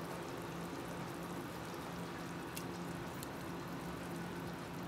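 Pot of fish soup simmering on a gas stove: a steady low hiss of bubbling liquid with a constant hum underneath and a couple of faint clicks.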